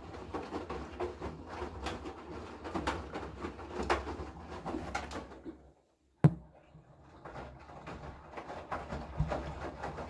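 Haier front-loading washing machine in its wash phase: wet laundry and water sloshing and tumbling in the turning drum over a low steady hum. The sound drops out for about half a second past the middle, then comes a single sharp thump, and the sloshing goes on.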